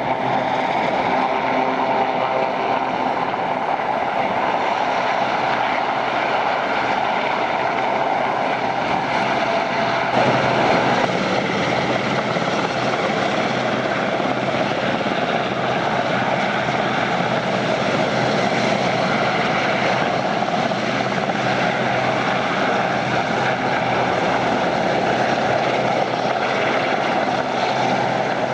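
Westland Sea King search-and-rescue helicopter hovering low, its rotors and twin turbine engines giving a steady, unbroken noise; the lower hum shifts slightly about ten seconds in.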